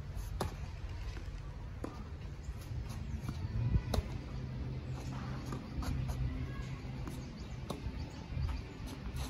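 Tennis rally on a clay court: sharp pops of a racket striking the ball, first the serve, then alternating returns, with the near player's forehand about four seconds in the loudest hit.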